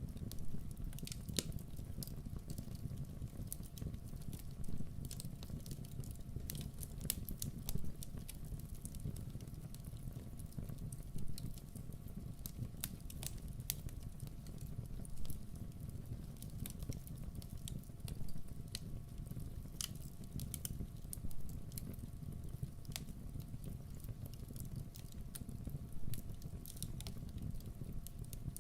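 Wood campfire burning: a steady low rumble of flames with irregular crackles and sharp pops every second or so, some louder than the rest.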